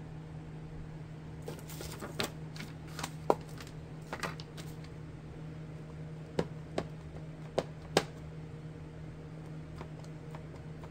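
Clear acrylic stamp and block handled, with crackly plastic clicks, then four sharp clicks about two to five seconds later as the acrylic block is pressed and tapped onto an ink pad. A steady low hum underneath.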